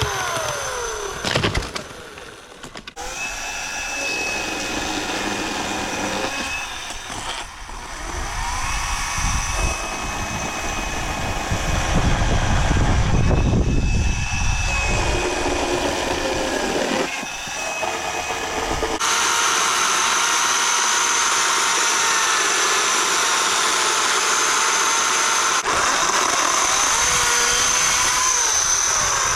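Ryobi 36-volt battery chainsaw's electric motor and chain running at one steady speed. It winds down near the start, spins up again more than once, and runs steadily through the last third.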